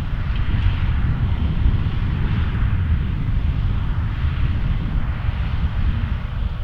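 Tractor pulling a round baler across a hayfield: a steady engine and machinery drone with a rushing hiss over a heavy, uneven low rumble.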